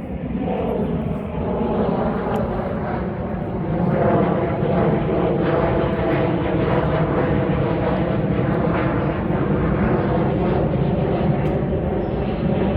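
Fixed-wing airplane flying low overhead: a loud, steady engine drone with several held tones.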